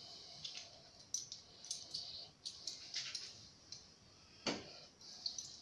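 Faint scattered clicks and soft rubbing as small metal parts of a black-powder revolver are wiped with a cloth and handled, with one sharper click about four and a half seconds in.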